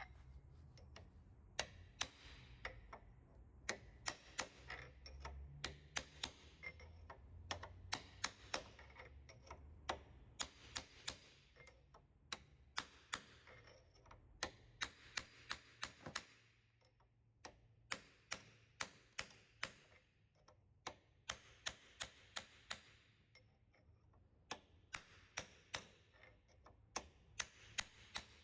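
Bursts of sharp light taps, about three or four a second, in groups separated by short pauses, as parts are tapped during bearing replacement work.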